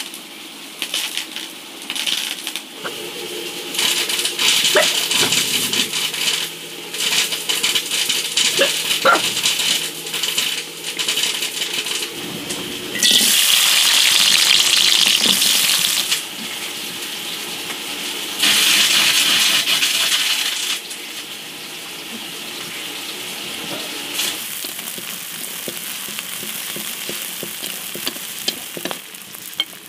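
Corn kernels frying in oil in a steel wok, hissing and sizzling, with two louder spells of sizzle about halfway through. In the first part, light clinks of chopsticks against a glass bowl of noodles.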